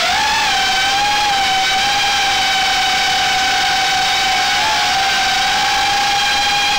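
Armattan Gecko 3-inch FPV quadcopter's motors and propellers whining in flight, heard close from the onboard camera. The pitch holds nearly level, with small dips and wobbles just after the start and near 5 seconds as the throttle is adjusted.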